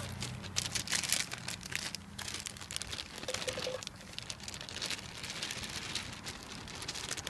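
Plastic slider-zip food bag crinkling and crackling as it is handled and its slider is drawn along to close it, making many small irregular crackles.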